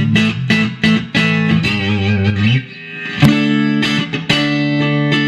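1957 Super Relic Fender Stratocaster electric guitar playing picked notes and chords. About a second and a half in, a held note wavers with vibrato and fades, and fresh chords ring out from about three seconds in.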